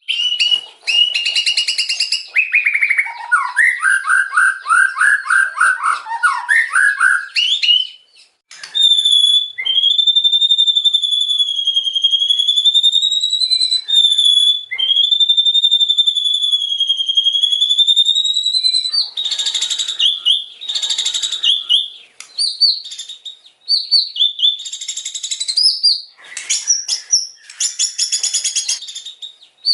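White-rumped shama (murai batu) singing. Fast harsh chattering and buzzy trills give way to two long, high, slightly wavering whistles of several seconds each, then quick varied phrases of short notes.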